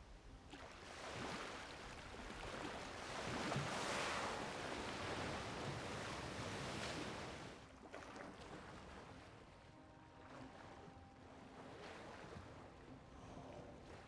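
Sea water sloshing and splashing around a surfacing southern right whale, a rushing wash that swells to its loudest about four seconds in and dies down by about eight seconds, leaving quieter lapping.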